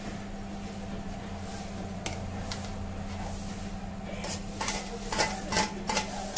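A steel plate clinking and knocking against a metal kadhai several times in the last couple of seconds as fried fish roe is slid off it into the curry, over a steady low hum.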